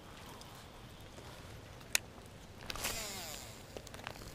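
Fishing rod and reel: a sharp click about two seconds in, then a short hiss with a falling whir as line pays off the reel on a cast, followed by a few light ticks.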